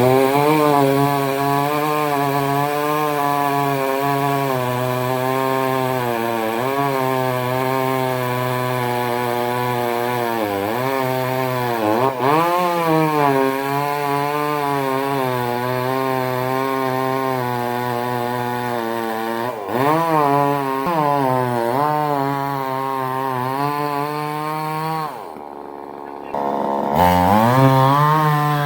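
Chainsaw cutting mango wood, its engine running under load with the pitch wavering as the chain bites. The revs dip and recover a few times, and near the end it drops to a lower, quieter idle for about two seconds before revving back up.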